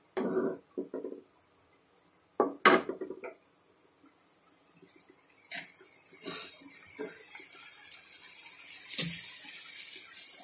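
Spices and dried red chillies frying in hot mustard oil in a metal wok: a hiss of sizzling that builds from about four seconds in and then holds steady. A wooden spoon scrapes and knocks against the pan now and then, most loudly in the first few seconds.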